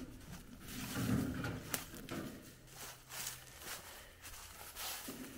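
Footsteps crunching through dry fallen leaves, with a single sharp click just under two seconds in.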